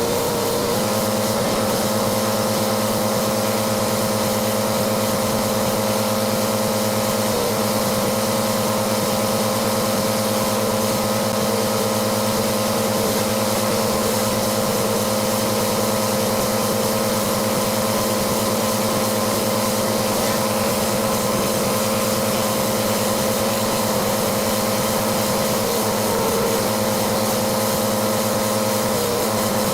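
Pressure washer running steadily: an engine hum at a constant pitch under the hiss of the water spray.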